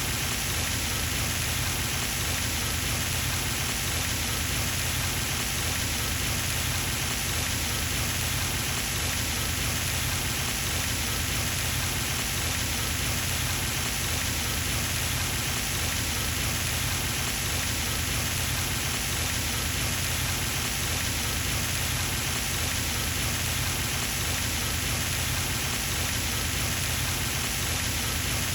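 Pond fountain spraying and splashing into the water, a steady, even rush.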